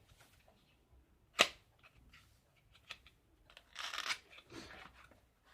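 A single sharp plastic click about a second and a half in, a fainter click near three seconds, then a brief rustle around four seconds: a battery charger and its packaging being handled.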